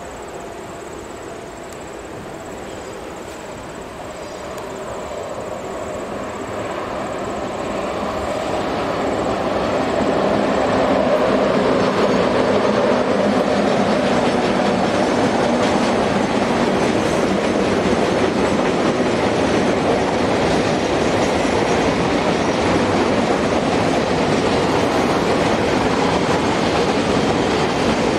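Electric-hauled container freight train passing close by, its wagons rumbling and clattering over the rails. It grows louder over the first ten seconds, then holds steady.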